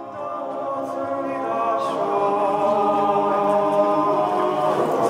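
All-male a cappella group singing a held chord in close harmony, swelling steadily louder.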